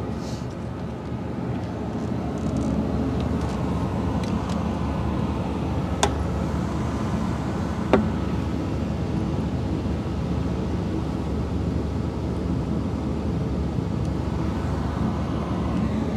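Steady hum and rush of a vehicle running, heard inside the cabin, with two short sharp clicks about six and eight seconds in.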